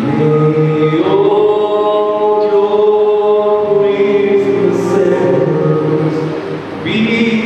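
Mixed choir singing long held notes in several parts, with a new phrase starting near the end.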